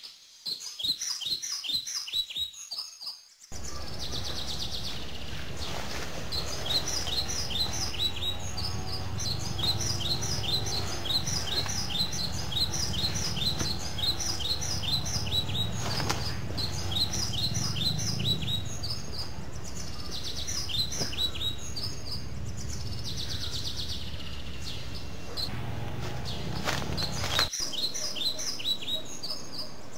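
Small birds chirping in quick repeated series of short, high, downward-sliding notes. A low steady rumble runs underneath from a few seconds in and cuts off abruptly near the end.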